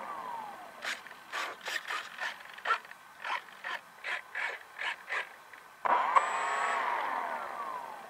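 Servos on a Durafly Tundra RC plane give about a dozen short buzzes over a few seconds as its control surfaces are worked from the transmitter during a pre-flight function check. Near the end the plane's electric motor is blipped: a whine that starts suddenly and falls slowly in pitch as the propeller spins down, like the one fading out at the start.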